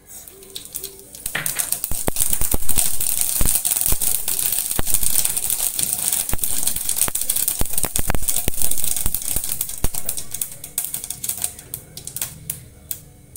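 Mustard seeds spluttering in hot oil in a kadhai, the first step of a tempering: a dense run of sharp crackling pops. It builds about a second in and thins out near the end.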